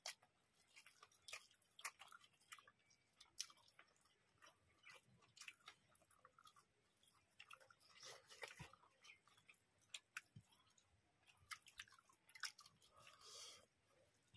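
Faint chewing and lip-smacking mouth sounds with many scattered sharp, wet clicks from people eating rice and chicken curry by hand.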